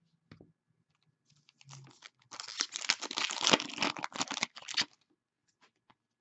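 Plastic crinkling and rustling in dense, irregular crackles for about three seconds as trading cards and their packaging are handled, loudest in the middle.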